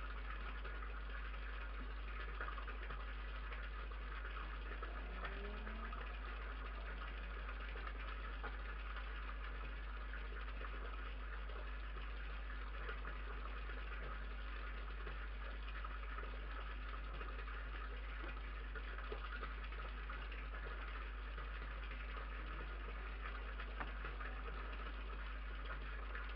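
Steady low hum and hiss with no distinct event: the background noise of an outdoor security camera's microphone.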